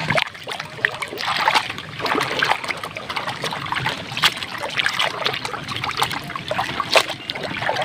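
Hands scrubbing and swishing a plastic toy gun under soapy water in a shallow paddling pool: irregular splashing and sloshing with many short wet splats.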